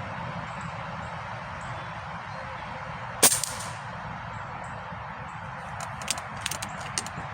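Benjamin Akela .22 PCP air rifle firing one shot, a single sharp crack a few seconds in. A few light clicks follow near the end.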